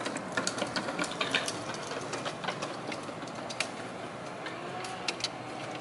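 Light, irregular metallic clicks and ticks of small hardware, a nut and washer being worked by hand onto a strut bar mounting bolt behind the strut tower, over steady background noise.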